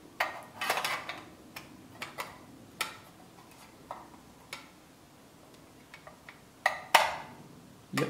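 Small hard clicks, knocks and scrapes of a plastic-and-metal 2.5-inch external drive case and SSD being handled and fitted together, with the loudest clicks about seven seconds in as the drive snaps into place.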